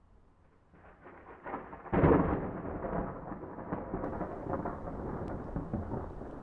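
Thunder: a rumble builds, then a loud thunderclap about two seconds in, followed by a long rolling rumble that slowly fades.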